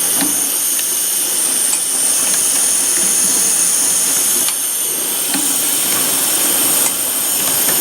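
Automatic carbide-tip saw-blade welding machine running: a steady high-pitched hiss and whine, with faint mechanical clicks now and then.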